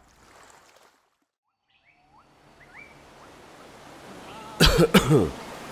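Outdoor ambience fading in after a second of silence: a steady hiss that grows louder, with a few short rising bird chirps. Near the end comes a brief run of loud vocal sounds falling in pitch.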